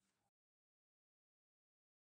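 Near silence: faint room tone that cuts off to dead silence almost at once.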